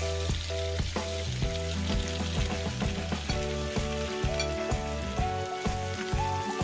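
Minced pork sizzling as it fries in hot oil in a wok, a steady crackling hiss, with background music playing along.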